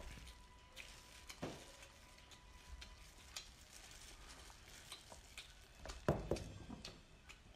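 Wet crackling and squelching as hands pull apart a sauce-covered crab and other seafood, with scattered short clicks of shell and a louder burst about six seconds in.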